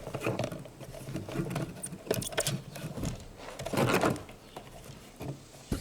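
Sharp plastic clicks and rattling handling noise from parts of a fuel pump module being handled and clipped together, loudest about four seconds in.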